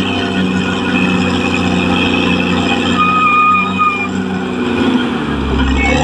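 Caterpillar D6R XL bulldozer's diesel engine running steadily, with a brief high-pitched squeal about halfway through and a deeper rumble near the end.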